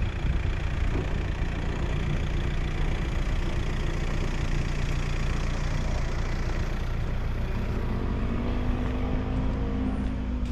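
Car engine running with steady road noise; near the end an engine tone swells and bends in pitch.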